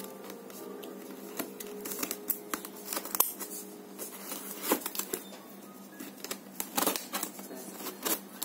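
Scissors snipping and slicing through plastic packing tape on a cardboard box, an irregular run of sharp snips and tape crackles with the box being handled, over soft background music.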